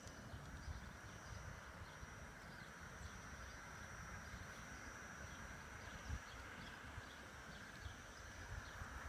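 USA Trains New York Central PA-1/PB-1 diesel model locomotives, analog with no sound system, running on garden railway track: faint rhythmic clicking of the wheels over the rail joints with a thin steady high whine.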